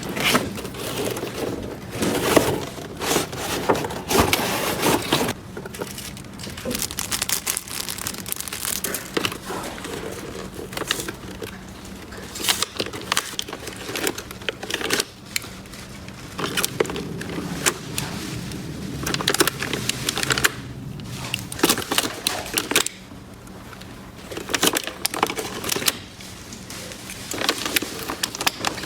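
Hands handling small plastic toy pieces: irregular clicks, taps and rustling, with brief pauses between bursts.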